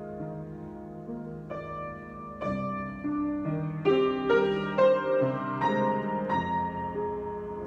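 Solo piano improvisation. A held chord dies away, then from about a second and a half in new chords and notes are struck one after another, louder and busier toward the middle.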